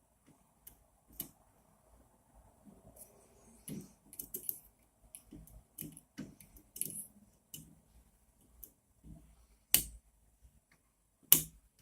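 Scattered clicks and light knocks of small printer-kit parts, nuts and tools being handled during hand assembly, with two louder sharp clicks near the end.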